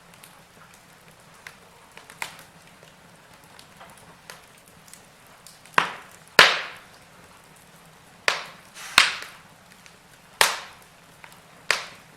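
Logs burning in a fireplace: a faint steady hiss with scattered sharp crackles, then about six loud pops in the second half, each dying away quickly.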